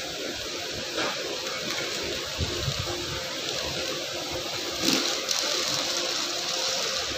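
Steady background noise of a busy railway station platform, with a couple of brief louder sounds about one second and five seconds in.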